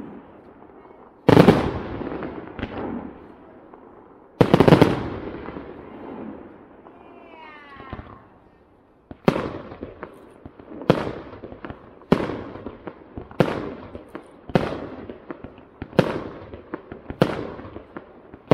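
Aerial fireworks shells bursting. Two big booms each roll away in a long rumbling tail, then about halfway through a steady series of sharp bangs follows, roughly one every second and a bit.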